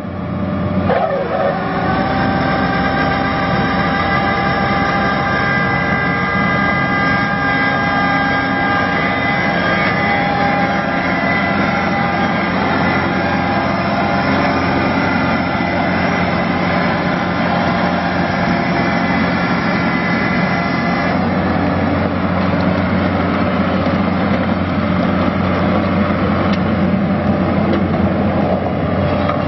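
John Deere 1600 Turbo ride-on rotary mower's Yanmar turbo diesel engine running steadily as the mower drives. Over it is a whine of several steady tones that rises in pitch about a second in, holds, then drops away about two-thirds of the way through, leaving a deeper engine drone.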